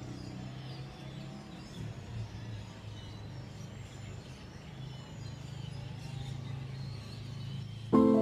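Outdoor ambience: a steady low rumble with faint bird chirps. Near the end, music starts suddenly with a sustained chord.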